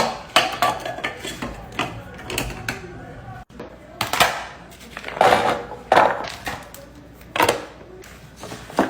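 Hard kitchen items clattering and knocking as they are handled and set down: a string of irregular sharp clicks and knocks, with louder clunks about four to six seconds in and again near the end.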